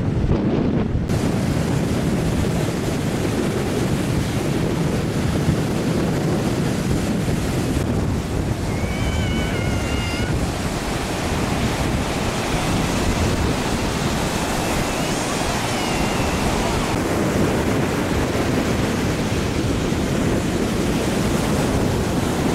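Wind buffeting the microphone over the steady wash of Baltic Sea surf breaking on the beach.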